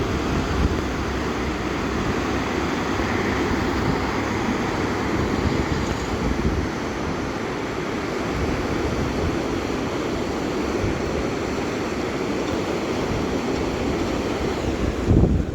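Steady, loud rushing noise with no clear pitch, heaviest in the low range, turning louder and choppier near the end.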